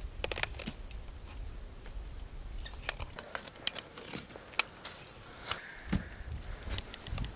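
Irregular snaps and crackles of dry sticks and leaf litter, with footsteps moving through bush undergrowth.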